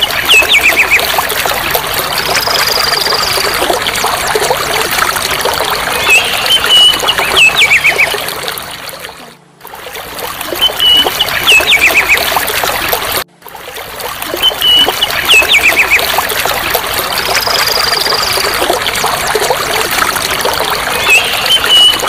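Water splashing and trickling in a shallow stream as crested mynas bathe, beating their wings in the water. Every few seconds a short bird call cuts through: a brief whistle followed by quick downward-sweeping notes. The sound drops out briefly twice, near the middle.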